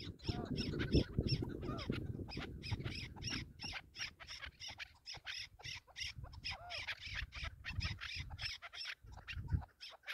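Chukar partridge calling: a fast, steady run of short repeated clucking notes, several a second, over a low rumble that eases off midway and returns near the end.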